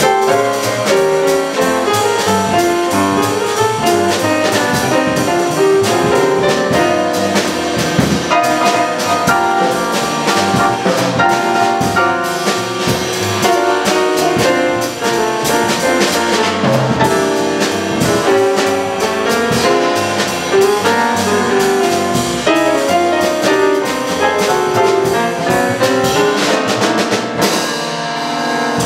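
Live small-group jazz: grand piano, upright double bass and drum kit, with a horn carrying a melodic line over them.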